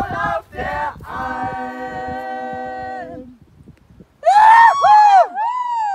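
A small group singing a several-part yodel chord a cappella, held steadily for about two seconds and then fading out. After a short pause, a single high voice gives three louder yodel calls that swoop up and down in pitch.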